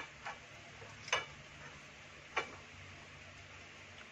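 Metal utensils clinking against dishes and a cooking pot during a meal: four short, sharp clinks at uneven intervals, one of them ringing briefly.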